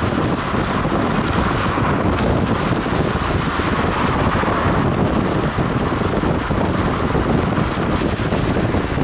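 Steady road noise from a moving vehicle on a wet motorway: tyre hiss and rumble on the wet surface, with wind buffeting the microphone.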